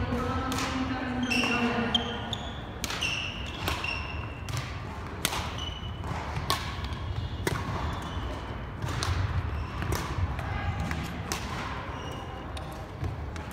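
Badminton play in a large hall: sharp racket-on-shuttlecock hits about once a second, each echoing briefly off the hall. Short high squeaks of court shoes on the hardwood floor come in between.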